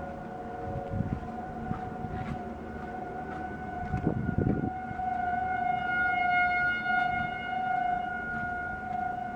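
Distant outdoor warning sirens sounding during a siren test: one steady pitched tone that grows louder and fuller around the middle before easing off. A low rumble rises under it about four seconds in.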